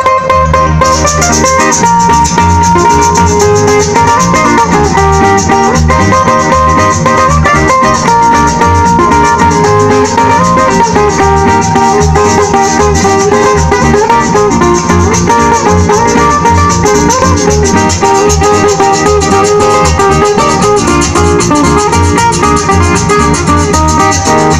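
Live parranda band playing an instrumental passage through a PA system: plucked string instruments carry the melody over a steady rattle beat, with no singing yet.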